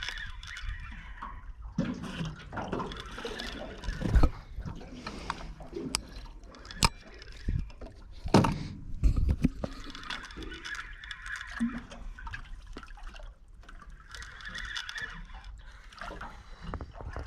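Water lapping and sloshing against a small boat's hull, with several sharp knocks and thumps on the boat.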